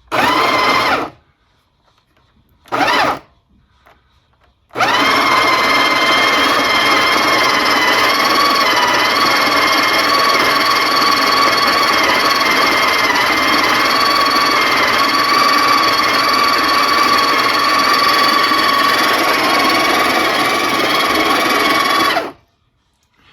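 Breville Smart Grinder Pro conical-burr coffee grinder grinding beans at a fine espresso setting. Two brief bursts come first, then a steady motor whine of about 17 seconds that cuts off sharply. The grinder is not excessively loud.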